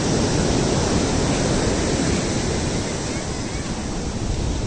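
Heavy surf breaking steadily on the beach, with wind buffeting the microphone.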